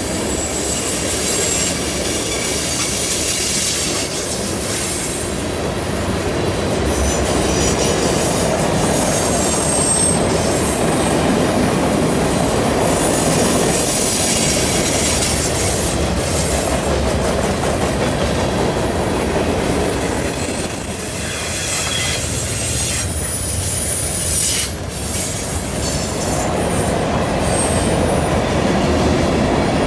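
Freight cars (tank cars and boxcars) rolling past at close range: a steady rumble of steel wheels on rail, with thin, high-pitched wheel squeal coming and going as the cars take the curve.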